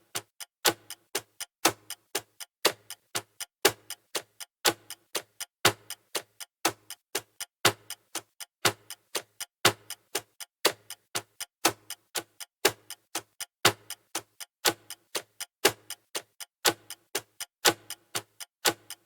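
Clock ticking for a countdown: an even run of sharp ticks, several a second, with a louder tick about once a second.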